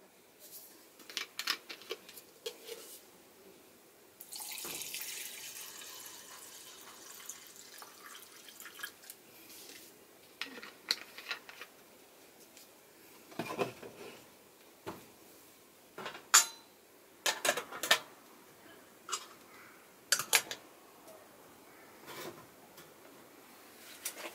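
Fuel alcohol poured from a bottle into a tinplate can, a few seconds of liquid pouring that starts suddenly and fades out, followed by scattered clinks and taps of the can's tin lids being handled and fitted on.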